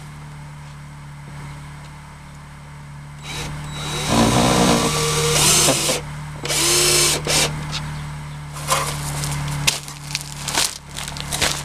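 A cordless drill running in two short bursts, its motor pitch shifting as it spins, about four and six and a half seconds in, followed by scattered sharp knocks and clicks.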